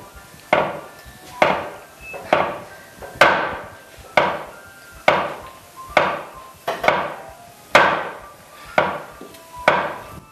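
A struck object is hit about a dozen times at an even pace of roughly one blow a second, each blow ringing briefly and dying away. The blows differ in loudness, one of them about three seconds in clearly louder than the rest, for listeners to pick out the loudest.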